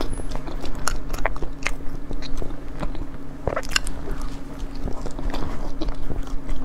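Mouth sounds of eating a soft pork-floss cake (rousong xiaobei): bites and chewing with scattered small crackly clicks at an irregular pace. A steady low hum runs underneath.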